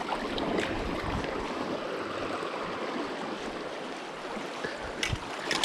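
Creek water running with a steady rushing hiss, and a few short clicks and knocks near the end.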